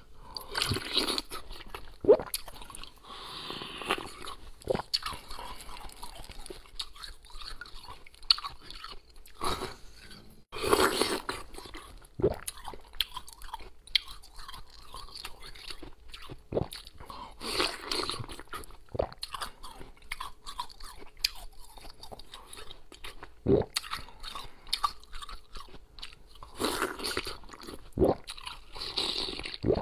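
Slushy ice frozen in a plastic water bottle being bitten and chewed close to the mouth: repeated sharp, irregular crunches and cracks with grinding chewing between them.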